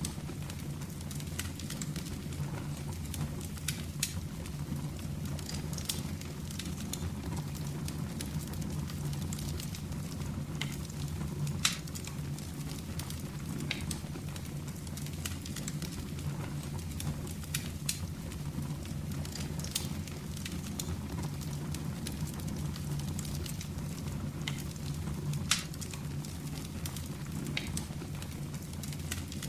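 Fire burning in a fireplace: a steady low rush with irregular sharp crackles and pops scattered throughout, and two louder pops about twelve and twenty-five seconds in.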